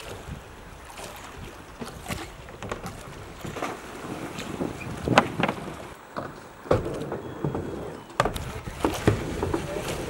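Water splashing and wind buffeting the microphone, with several short sharp knocks, the loudest about halfway through.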